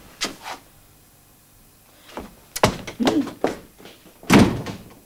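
A series of sharp knocks and thuds: a couple just after the start, a cluster about two and a half to three and a half seconds in, and the loudest, a slam, a little after four seconds.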